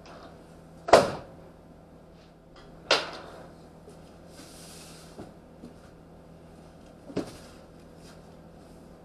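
Bangs and knocks in the bare metal cargo area of a van as packages and tie-down straps are handled: a loud bang about a second in, another about two seconds later, then a brief rustle and a few lighter knocks.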